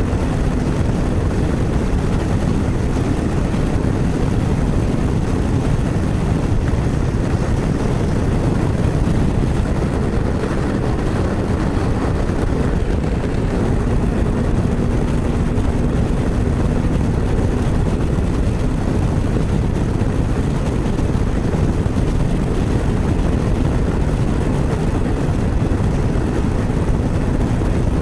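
Motorcycle being ridden at steady speed: a constant low rumble of engine and passing air, with a faint steady hum that fades in and out.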